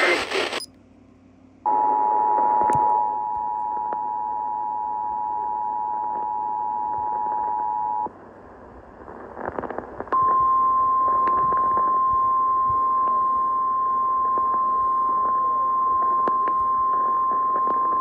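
Emergency Alert System tones over an AM radio: the two-tone attention signal sounds steadily for about six seconds, then after a short gap a single steady tone starts and holds, with faint static crackles behind.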